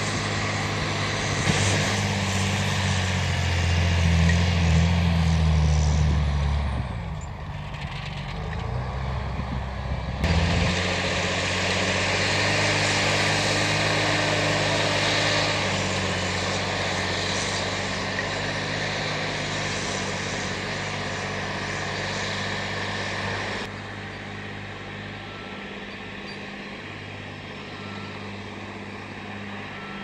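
John Deere 8520 tractor's six-cylinder diesel running steadily under load while pulling a five-furrow reversible plough through the soil. The sound changes abruptly about ten seconds in and again later, becoming quieter.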